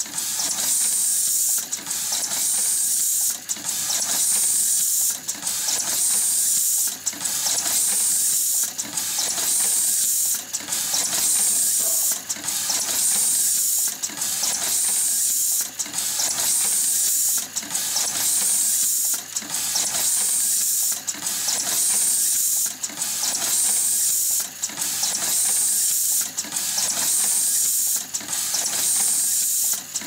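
JAM JN10SD fully automatic wire crimping machine running continuously. A steady high hiss breaks off briefly about every second and three-quarters in a regular rhythm, over lighter mechanical clatter.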